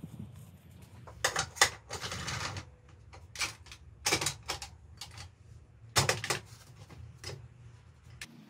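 Irregular sharp metallic knocks and clanks from hand work at a motorcycle tyre changer, with a short scraping noise about two seconds in.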